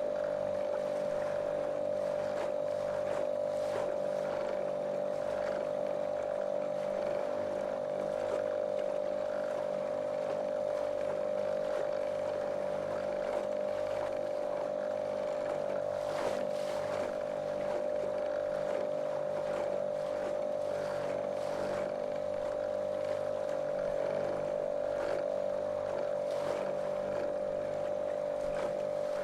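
Small motorboat's outboard engine running steadily at a constant speed, a monotonous drone with a strong steady tone, over the rush of water against the hull.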